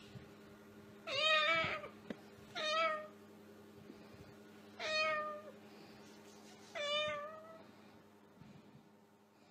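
Four drawn-out meows, each under a second long and spaced roughly one and a half to two seconds apart, over a faint steady hum.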